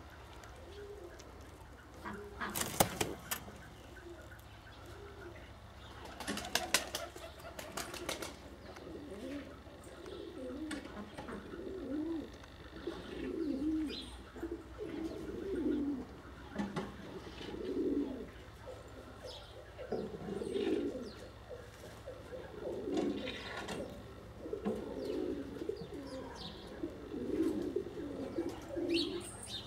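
Mazurian tumbler pigeons cooing, low coos coming in repeated phrases every second or two and busier in the second half. Two clusters of sharp clattering clicks stand out about three seconds in and again around six to eight seconds in.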